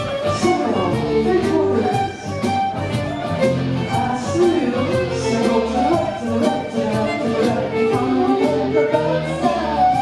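Live contra dance band playing a fiddle-led dance tune with a steady beat.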